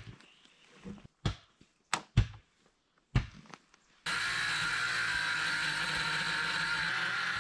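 A few sharp knocks and taps, then about four seconds in a Ryobi circular saw starts and runs steadily with a constant whine, cutting along the edge of a rough-sawn board.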